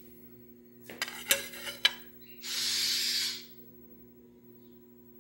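Metal cookware on a stovetop clinking and knocking several times about a second in, then a hiss lasting about a second. A steady low hum runs underneath.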